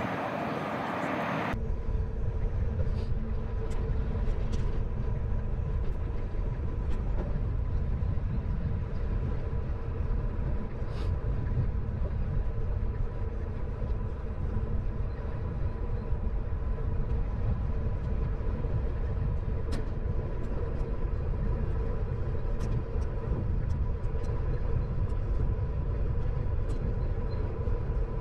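Wind buffeting the microphone and tyre rumble from a moving bicycle: a dense, steady low rumble with scattered light clicks and a faint steady hum. The sound sets in abruptly about a second and a half in.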